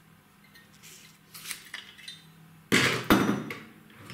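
Hard objects being handled and set down on a workbench: a few light clicks, then a louder clatter of two knocks about three seconds in.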